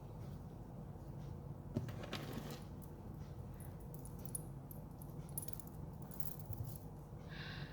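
Small items and plastic packaging being handled, with light clicks, rustling and faint metallic clinks, and a short high squeak near the end.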